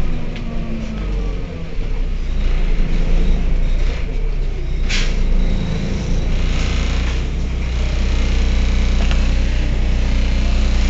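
Heuliez GX 127 city bus's diesel engine running, with a steady low hum whose pitch shifts as it works, and a short hiss about five seconds in.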